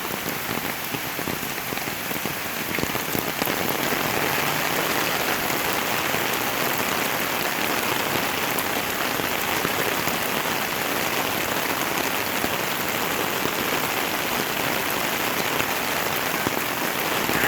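Heavy rain falling steadily, a continuous hiss of drops on wet surfaces that grows a little louder about three seconds in.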